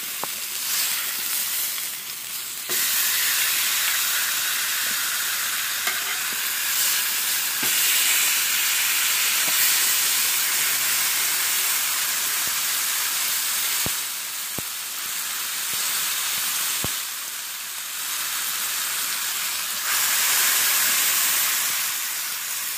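Steaks searing on a hot flat-top griddle: a steady sizzle that gets louder about three seconds in, with a few sharp ticks around the middle.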